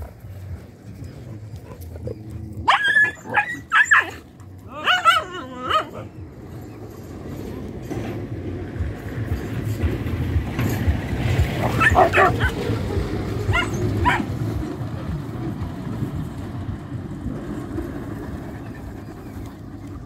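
Several dogs barking and yelping in a scuffle over a female, with a burst of loud barks about three to six seconds in and a few more around twelve and fourteen seconds. Under the later barks a motorcycle engine draws near, rising and then holding steady.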